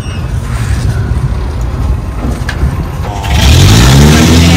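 Outrigger fishing boat's engine running steadily at low speed. About three seconds in it turns much louder and its pitch rises as it speeds up, with a hiss of water and wind over it.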